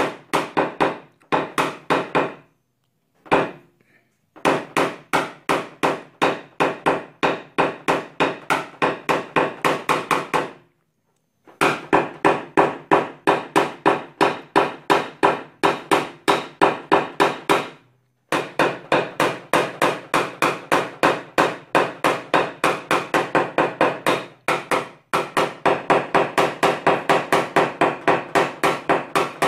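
Rapid, even taps of a hammer on a PDR knockdown punch against a car's trunk lid, tapping down hail-dent high spots. The taps come in long runs of about four to five a second, broken by a few short pauses.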